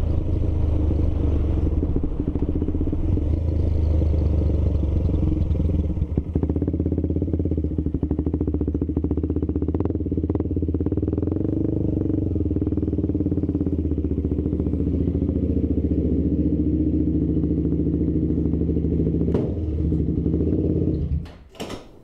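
KTM 390 Adventure's single-cylinder engine running steadily as the bike rolls along slowly and slows to a crawl. A deeper rumble underneath fades about six seconds in. The engine sound stops abruptly about a second before the end, leaving a few clicks.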